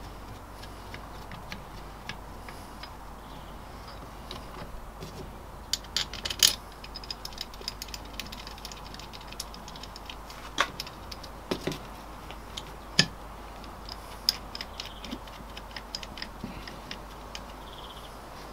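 Small metallic clicks and clinks of a steel connecting rod and its bearing cap being handled and fitted onto a VW air-cooled 1300 engine's crankshaft. A quick cluster of clinks comes about six seconds in, and a few sharper single knocks follow later.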